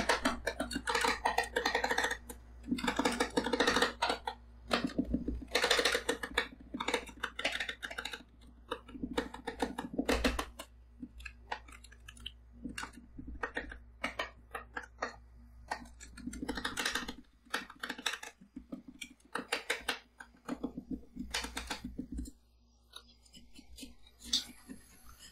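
Two metal spatulas rapidly chopping and tapping on the steel cold plate of a rolled-ice-cream pan, working whipped cream and blueberries: a fast, uneven clatter of clicks that comes in bursts and dies down near the end.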